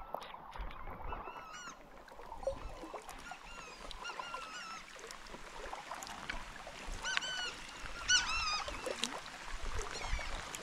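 A flock of birds calling over and over: short, harsh calls that rise and fall in pitch, overlapping more and more towards the end. Kayak paddle strokes splash faintly underneath.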